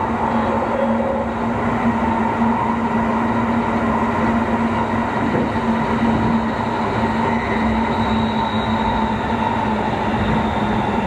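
Interior running noise of a Keikyu 2000 series EMU motor car at speed: steady rumble of wheels on rail with a continuous hum from the traction motors and gearing.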